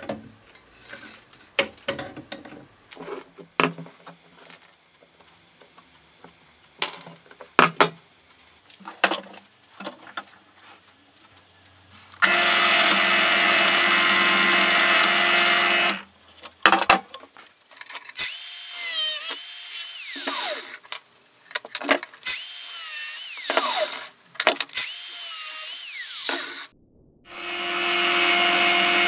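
Benchtop drill press drilling holes through a metal cleaver's handle tang. For the first dozen seconds there are only scattered clicks and knocks from the workpiece being handled on the table. Then the drill runs steadily, cuts in several stop-start passes with a high squeal that rises and falls, and runs steadily again near the end.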